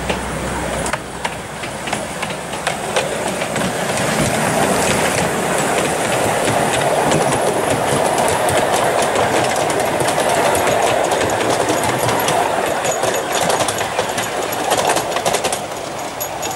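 Miniature railway train running along the track: a steady rumble of small wheels on the rails with frequent clicks over the rail joints. It grows louder from about four seconds in and eases off near the end.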